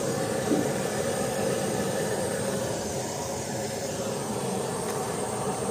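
Steady background noise of a traditional market, an even rushing din with no clear voices.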